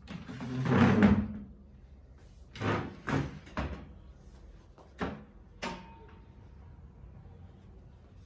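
Wooden dining chair being dragged across the floor: one long scrape of about a second and a half at the start, then five short knocks as chairs and the mop bump and are set down.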